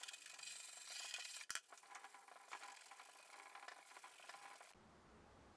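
Stiff nylon brush scrubbing paint residue out of wet oak veneer with mineral spirits: a quiet, rapid, rasping back-and-forth. It stops abruptly about four and a half seconds in, leaving a faint low hum.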